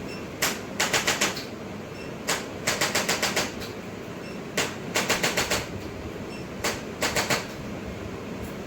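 Sharp mechanical clicking in groups: a single click, then a quick run of five or six, repeating about every two seconds, four times, over a steady background hum.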